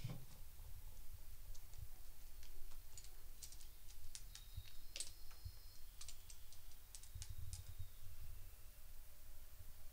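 Irregular light clicks and taps of a small object being handled and worked at with a small hand tool, about a dozen spread through the middle seconds, over a low steady room hum.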